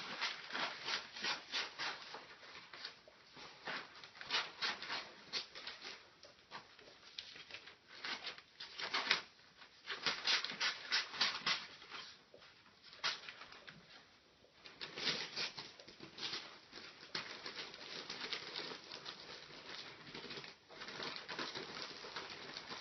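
Gift-wrapping paper crinkling and rustling in repeated crackly runs as it is folded and pressed around a small dog.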